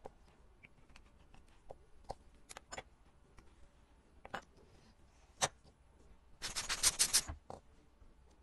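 Small metal tools and watch parts clicking and tapping at the bench as a mechanical watch is taken apart, with a brief denser crackling rattle near the end, the loudest sound.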